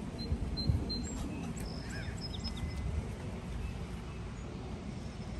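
Outdoor ambience: a steady low rumble with a few short, faint bird chirps, one of them a brief gliding note about two seconds in.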